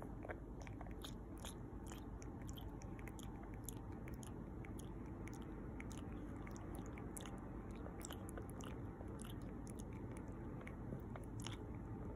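A sleeping Boston terrier–Jack Russell terrier mix puppy making suckling sounds with its mouth: quick, irregular wet clicks, several a second.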